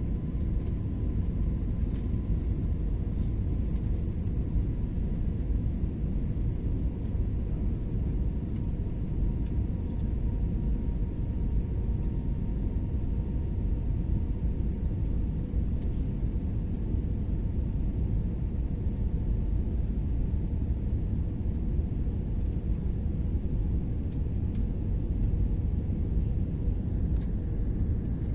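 Steady low rumble of a jet airliner heard inside the cabin: engine and airflow noise, with a faint high whine that sinks slightly in pitch.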